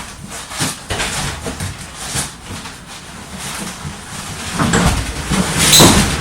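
Irregular rustling and knocking as packaging and machine parts are handled, loudest near the end.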